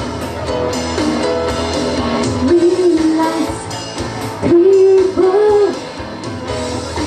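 A woman singing into a microphone over rock accompaniment, holding long sung notes in the second half.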